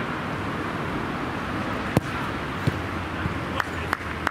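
A football being kicked: four sharp knocks, the loudest about two seconds in and three more in the last two seconds, over steady outdoor background noise.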